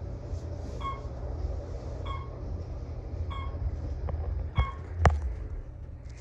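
Otis Series 1 elevator cab in motion: a steady low hum, with a short electronic beep repeating about every second and a quarter as the car passes floors. About four and a half seconds in, two sharp clicks or knocks follow.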